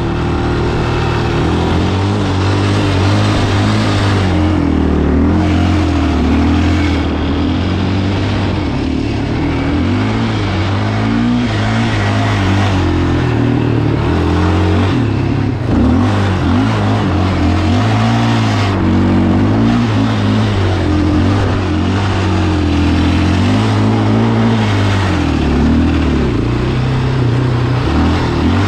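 Single-cylinder 700 cc sport quad engine being ridden hard, its pitch climbing and dropping again and again as it accelerates, shifts and lets off.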